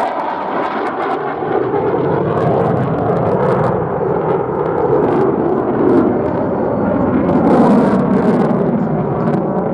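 F-35 Lightning II fighter jet's single Pratt & Whitney F135 engine, a loud continuous jet roar whose tone drifts slowly as the aircraft flies its display.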